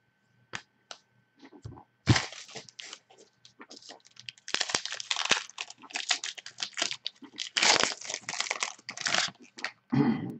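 A foil trading-card pack wrapper being torn open and crinkled by hand: a run of crackling rustles, with a duller thump near the end.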